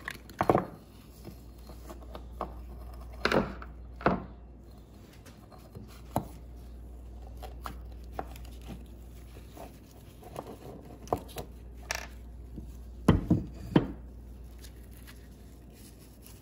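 The metal and rubber parts of an old Mercruiser 260 marine mechanical fuel pump being pried apart with a screwdriver and handled: irregular clicks and knocks, with several close together near the end.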